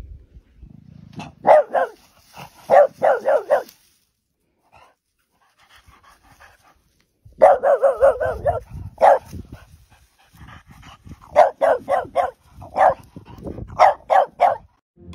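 French bulldog barking in runs of quick, high, yappy barks, three bursts with pauses of a few seconds between them.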